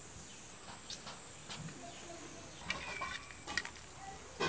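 Faint outdoor rural background with a steady high hiss and a few scattered bird chirps. About three seconds in come several light clinks of a steel spoon against a steel plate.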